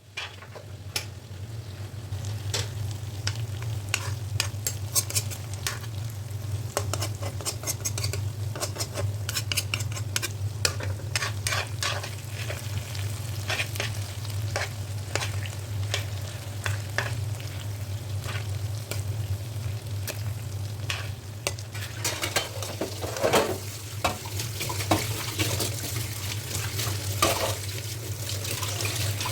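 Brinjal frying in oil in a pan, sizzling steadily, with the repeated scrape and clack of a spatula stirring it against the pan. A steady low hum runs underneath.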